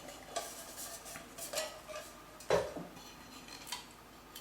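Metal clinks and knocks of a two-piece cooking cup and stove base being handled and fitted together, the loudest knock about two and a half seconds in.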